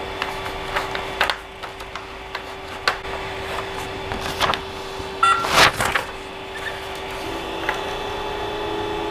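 A Creality CR-10S Pro 3D printer hums steadily while a sheet of paper is handled against the print bed for manual levelling, giving scattered rustles and taps. The loudest rustle comes about five and a half seconds in. A second steady motor tone joins about seven seconds in.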